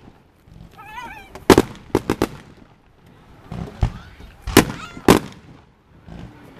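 Fireworks going off: sharp bangs and cracks, a quick cluster about one and a half to two seconds in and another about four to five seconds in. A short wavering call sounds about a second in.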